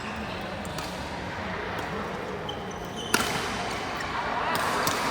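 Badminton rally: rackets hitting the shuttlecock several times, the loudest hit a little past halfway, with short shoe squeaks on the court over a steady murmur of voices.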